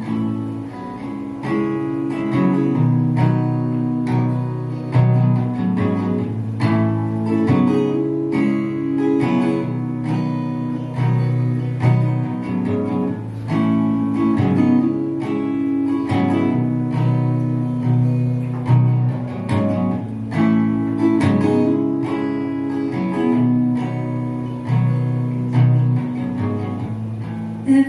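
Instrumental introduction to a song played live: a guitar playing chords in a steady rhythm, before the singing comes in.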